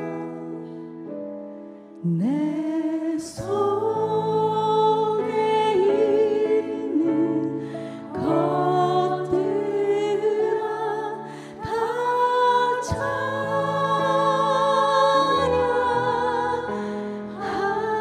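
A woman sings a Korean worship song into a microphone, accompanied by a band with held chords and bass guitar. Her sung phrases begin about two, eight and twelve seconds in, with vibrato on the held notes.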